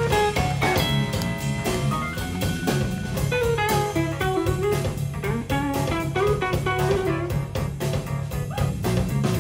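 Jazz-funk quartet playing live: an electric guitar plays a single-note lead line over electric bass, a busy drum kit with rapid even strokes, and keyboards.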